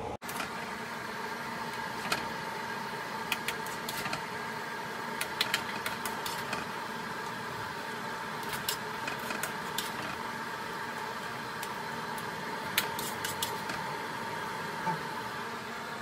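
A plastic spoon scraping food out of a nonstick frying pan and tapping it into aluminum foil trays: about a dozen light, scattered clicks and taps over a steady mechanical hum.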